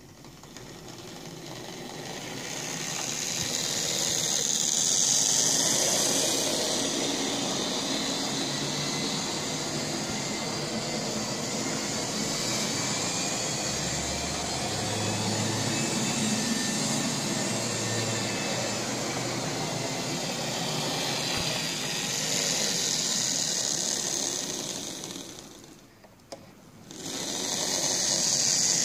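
Lima OO gauge model of a BR Class 37 diesel locomotive running on a model railway: its small electric motor whirring and its wheels rattling over the rail joints. The sound swells as it approaches, holds steady, drops away briefly near the end, then comes back.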